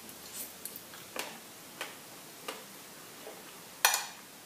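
A metal spoon ticking lightly against a glass of chia pudding while eating: a string of soft, irregular clicks, then one much louder ringing clink near the end as the spoon scoops into the glass.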